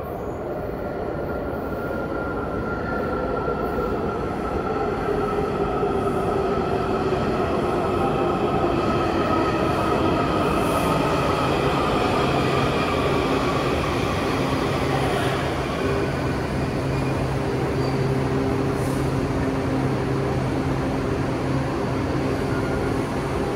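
Kawasaki 7000-series Metrorail subway train pulling into an underground station and braking. Its traction motors whine in several tones that fall in pitch as it slows, over the rumble of the train. It comes to a stop about halfway through, leaving a steady low hum.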